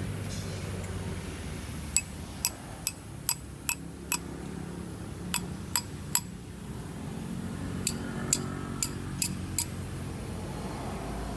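Hard parts clinking against each other: about fourteen sharp clicks in three quick runs, over a low steady hum, as pieces of a hydraulic main control valve are handled during cleaning.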